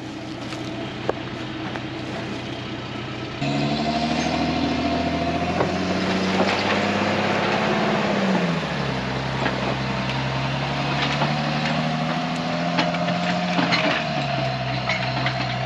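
Bell 4206D tractor's diesel engine running as it drives off carrying the raised tile plow. The engine gets louder a few seconds in, drops in pitch about halfway, and drops again near the end.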